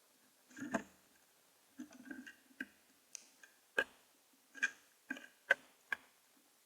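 Common grackle pecking at a bird feeder: about a dozen irregular sharp taps and clicks of its bill on the feeder and the seed.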